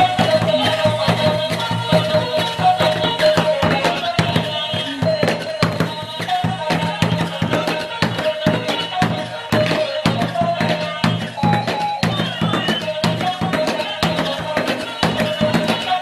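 Battery-operated toy orangutan playing its built-in electronic tune: a simple melody over a steady drum beat.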